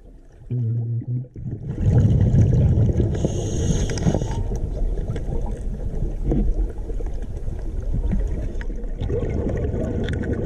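Muffled rumble and crackle of river water, as heard through a diver's camera underwater, with a brief hiss a few seconds in.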